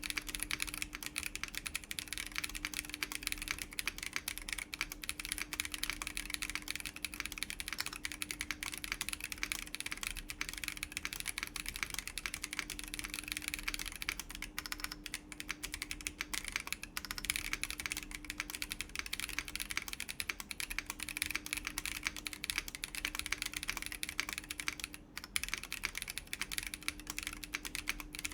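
Continuous typing on a Chilkey ND104 mechanical keyboard fitted with WS BigLucky tactile switches, PBT doubleshot keycaps and an FR4 plate: a dense, steady run of key clacks with no pauses.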